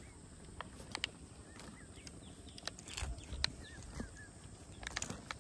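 Faint jungle ambience: small birds chirping now and then, with scattered sharp clicks and knocks, loudest about three seconds in and again near the end.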